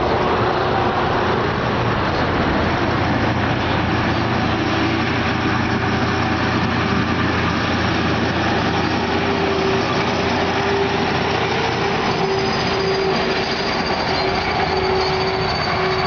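Kirovets K-700/K-701 articulated tractors driving past, their heavy diesel engines running steadily with a whine. The whine grows stronger in the second half, and a higher whine joins near the end.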